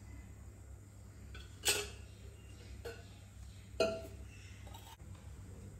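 A steel spoon clinking against metal twice, about two seconds apart, with a few fainter ticks, as oil is spooned into a pan; a low steady hum runs underneath.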